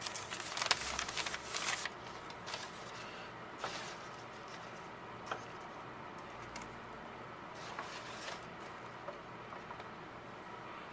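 Wrapping on a bar of soap rustling and crinkling as it is handled and opened for about two seconds, then a few light taps and clicks of handling.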